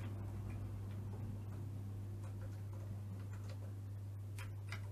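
Commodore 128 keyboard keys pressed one after another for a keyboard test: a run of light clicks that comes thicker and sharper near the end, over a steady low hum.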